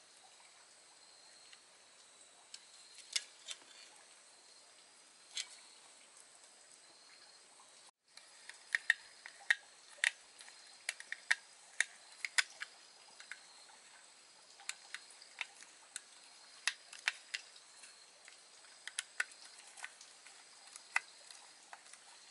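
Small screwdriver clicking and scraping against the screws and metal contacts of a plastic electrical socket: scattered sharp ticks, a few at first, then coming thick and irregular from about eight seconds in.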